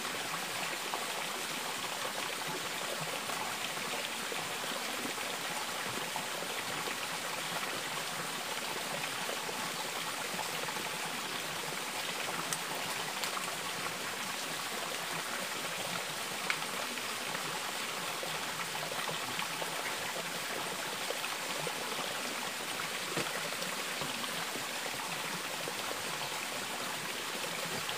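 Steady rush of water trickling and running over rocks, with a few faint taps.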